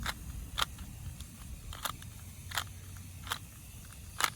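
Plastic Rubik's Cube faces being turned, a sharp click with each turn: about six clicks at uneven spacing, half a second to a second apart, with a quick double click near the end, during the final moves of a solve.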